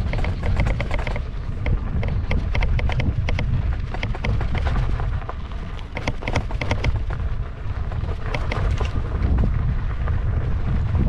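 Wind buffeting the microphone with a heavy low rumble while riding an electric unicycle down a rocky dirt road, with frequent irregular clicks and rattles from the tyre and gear jolting over loose gravel and stones.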